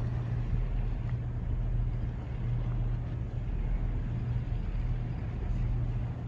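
A steady low hum with a lower rumble beneath it, unchanging throughout, over an even wash of outdoor noise.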